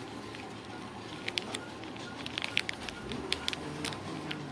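Scattered short clicks and crackles of things being handled close to the microphone, as when packing food to take along.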